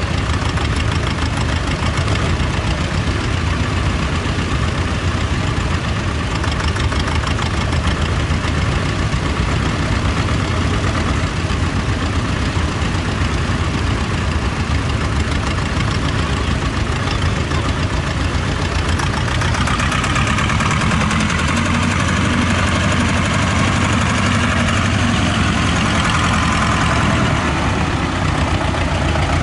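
Small tractor diesel engines running steadily: first a Vladimirets T-25's two-cylinder air-cooled diesel working a mounted plow. About two thirds of the way in, the sound changes as another small tractor engine takes over.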